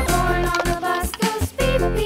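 Upbeat children's background music with a steady beat.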